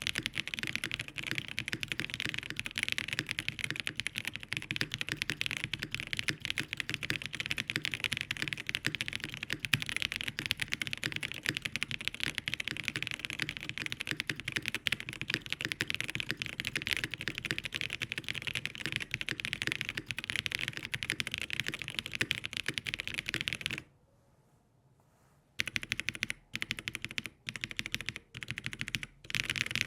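Fast, continuous typing on a custom AERO.75 mechanical keyboard fitted with Dangkeebs Banana Milk linear switches: a dense run of keystrokes. Near the end it breaks off, a handful of separate keystrokes follow, and then the typing picks up again.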